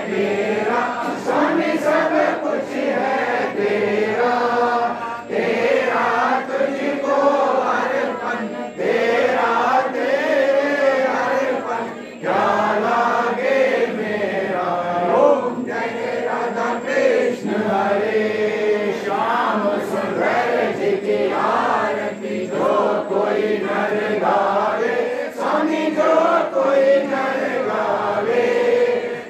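Devotees chanting a Hindu aarti hymn to Ganesha together, many voices singing in unison.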